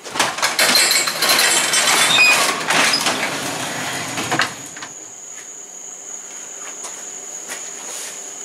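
Sectional garage door being pushed up by hand, its rollers rattling and clacking along the metal tracks for about four and a half seconds. Once it is open, crickets chirp steadily outside as a thin, high, even trill.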